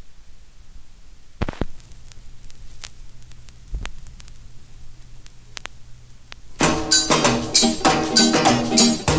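Stylus of a Numark TT1625 turntable dropped onto a vinyl record with a couple of sharp clicks, followed by a low steady hum and faint surface crackle from the lead-in groove. A few seconds later, music with drums starts playing loudly.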